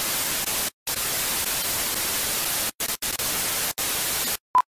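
Television static hiss, cutting out abruptly several times, followed by a very short, loud, high test-tone beep near the end.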